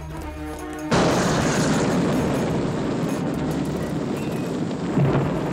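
Film explosion of a bomb in a wine bottle: a sudden loud blast about a second in, after a held music chord, then a long rush of fire and debris that slowly fades, with a second boom near the end.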